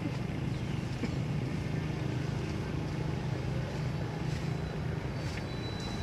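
An engine running steadily nearby, a low even hum with no change in speed.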